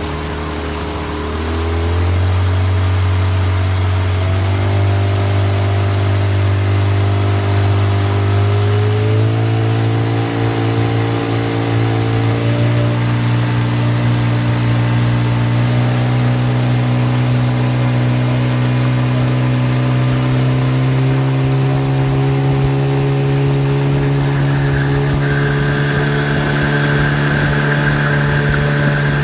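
Car engine running with its revs raised in steps and then held. About 25 s in, a steady high-pitched whistle joins it: the whistle whose cause the owner is trying to find.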